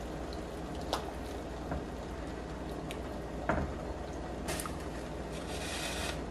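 Pieces of raw pig's feet dropped one at a time into a pot of boiling water, with a few short splashes and knocks against the pot, the loudest about halfway through, over the steady bubbling of the water. A brief hissing splash comes near the end.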